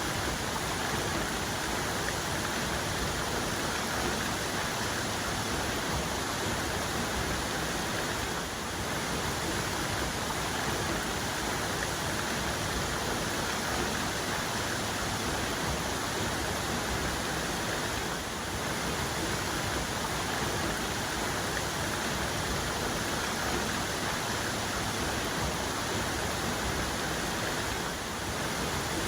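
Waterfall's main cascade: water falling in a steady, dense rush that does not let up, with only slight brief dips in level about every ten seconds.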